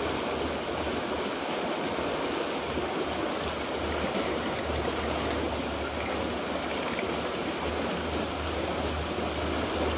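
Small creek flowing steadily past debris at the bank, with a low rumble that comes and goes.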